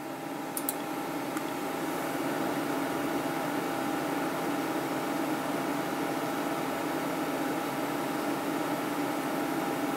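Steady whirring hum of a running desktop computer's fans, with two faint mouse clicks in the first second and a half.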